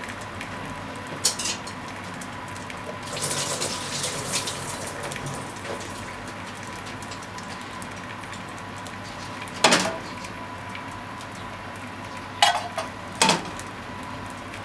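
Oil heating in a nonstick frying pan on a stove, with a short spell of faint crackling sizzle about three to five seconds in. A few sharp metallic knocks of the pan come once near the start and three times in the last five seconds, over a steady background hum.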